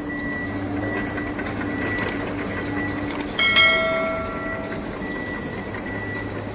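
Electronic sound effects: a steady hum with a high tone coming and going, two sharp clicks, then a bell-like chime about three and a half seconds in that fades over about a second.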